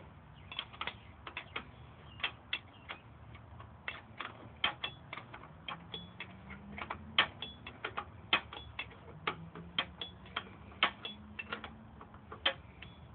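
Hand ratchet wrench clicking in short runs of sharp ticks, a few per second with pauses, as it is swung back and forth on a bolt at the motorcycle's highway bar mount.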